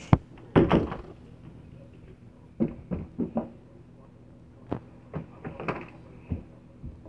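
Interior door pulled shut with a sharp latch click, then a rattle. Irregular knocks and bumps on the door follow every second or so.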